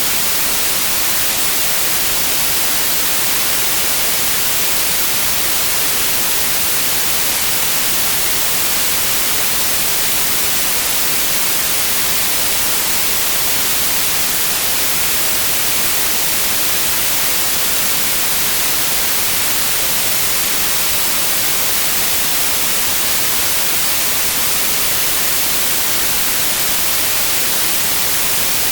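White noise: a steady, even hiss with no changes, strongest in the high frequencies.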